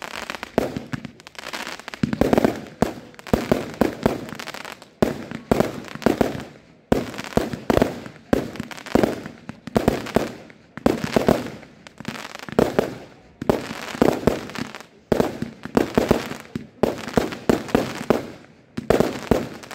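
Aerial fireworks display: a rapid, continuous string of shots launching and bursting, about one or two loud reports a second, each fading quickly.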